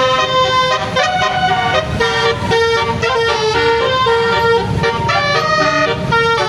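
Basuri (telolet) multi-tone bus air horn playing a melody: several notes sound together and step to new pitches every fraction of a second.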